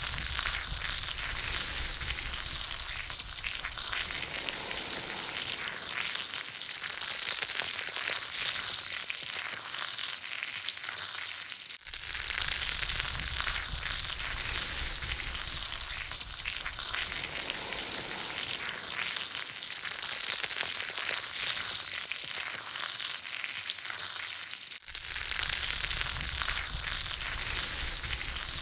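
Charcoal fire crackling and chicken wings sizzling on skewers over the glowing coals: a steady, dense crackle of fine pops and ticks. It breaks off for an instant twice, where the audio is spliced.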